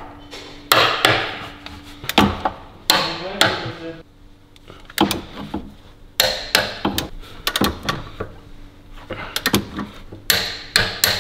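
Torque wrench ratcheting and clicking as the four bolts holding a new wheel bearing to the wheel carrier are tightened to 100 Nm: a series of sharp metallic clicks and knocks with some brief ringing.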